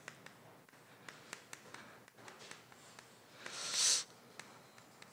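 Chalk tapping and scratching on a chalkboard as words are written, faint, with many small clicks. A short hiss about three and a half seconds in is the loudest sound.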